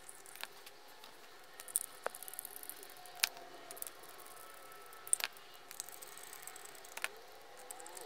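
Small hand screwdriver turning screws into the plastic case of an old Milwaukee 18-volt battery top being put back together: a few light, sharp clicks scattered through, with faint squeaks as the screws bite into the plastic.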